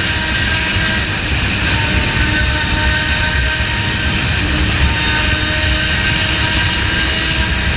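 Motorcycle engine running at a steady road speed under heavy wind rumble on the microphone, its note shifting slightly in pitch a couple of times.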